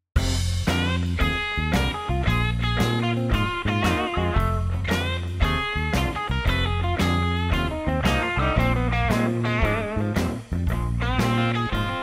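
Background music: a guitar-led rock track with a steady beat, starting suddenly at the beginning, with a brief dip about ten seconds in.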